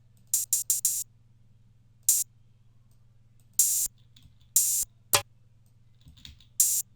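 Single drum-loop slices in FL Studio's Slicex sampler, triggered one at a time at irregular intervals: short, bright, hissy hits, with a quick run of four near the start and single hits after that.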